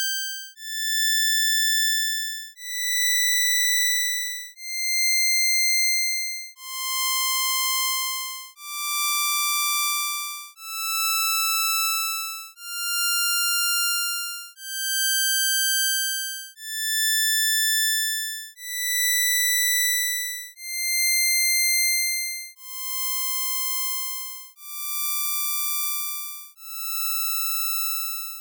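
Synthesised impulse-train tones from Csound's buzz opcode, sent through digital filters: a run of about two-second notes that each swell and fade, with pitches stepping up and back down. The early notes pass through FIR and IIR low-pass filters. The last few notes, a little quieter, pass through an IIR high-pass filter.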